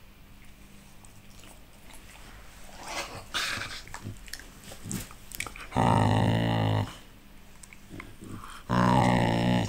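American Staffordshire terrier growling in play: two drawn-out, low grumbling growls of about a second each, about six and nine seconds in, with soft rustling and mouth noises before them.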